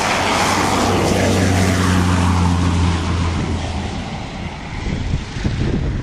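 A propeller aircraft flying past: a loud engine and propeller rush that is strongest at first and fades, with a steady low drone from about one to three and a half seconds in.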